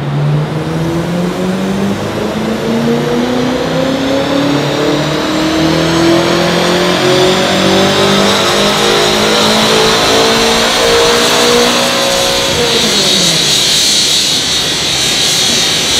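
BMW F10 M5's twin-turbo V8 on a full-load power run on a chassis dyno. The engine note climbs steadily in pitch for about twelve seconds, then falls away as the throttle is lifted, while a high whine carries on.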